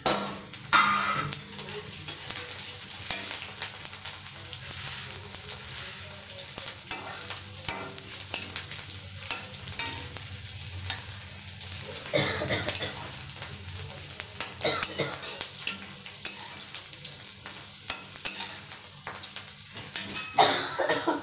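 Tadka of green chillies, ginger, garlic and cumin sizzling in hot oil in a steel kadhai, with a steady hiss throughout. A spatula stirs and scrapes the pan, giving frequent short clinks and scrapes.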